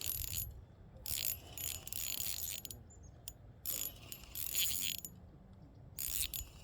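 Fishing reel being cranked in short spurts, its gears whirring and clicking, while a hooked fish fights on the line.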